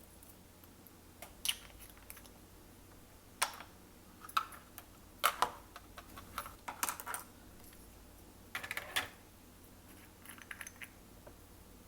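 Slime being squeezed and worked by hand, giving irregular sticky clicks and short crackling pops, a few at a time.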